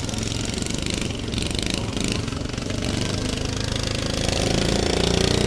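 Small engines of stock lawn tractors running hard in a race, the sound growing louder near the end.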